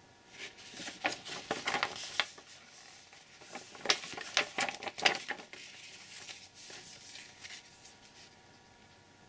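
A large glossy paper insert being handled and folded up, rustling and crackling in two bursts of sharp crinkles, then softer paper handling that dies away near the end.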